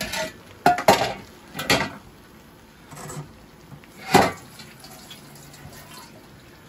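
A large metal colander clattering as it is lifted off a pot of rice and set down in a metal sink: a series of sharp metallic knocks, the loudest about four seconds in.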